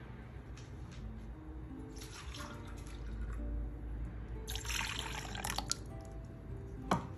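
Milk poured from a glass into a bowl already holding milk, splashing and trickling for a couple of seconds, over soft background music. A sharp knock comes near the end.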